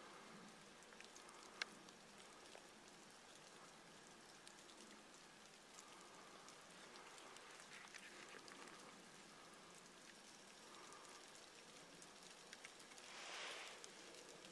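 Faint light rain falling on leaves and brush, with scattered small drip ticks. There is one sharper tick about a second and a half in, and a brief swell of hiss near the end.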